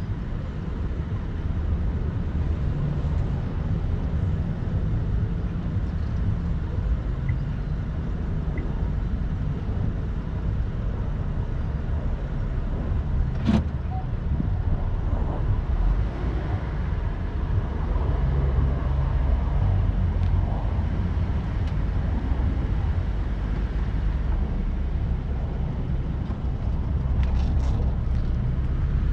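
A car driving, its engine and tyres making a steady low rumble, with a single sharp click about halfway through.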